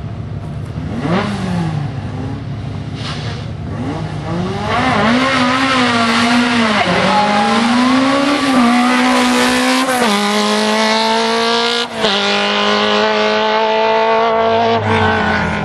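Fiat X1/9 Dallara 1600 race car's four-cylinder engine blipped twice on the start line, then launching about four seconds in and accelerating hard, the engine note climbing and dropping back with each of several quick upshifts.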